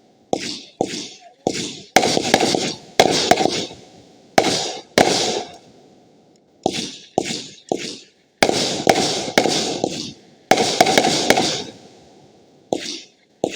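Fireworks going off: a string of sharp bangs at irregular intervals, each trailing off in a short crackle, with brief lulls about halfway through and near the end.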